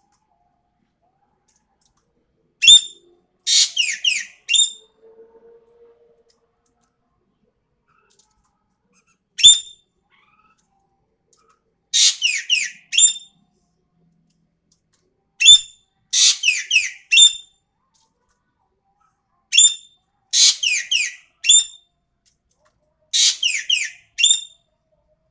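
Ekek keling bird in full song, calling loudly in six bursts, each a sharp opening note followed by a rapid run of high, falling whistled notes, repeated every three to four seconds.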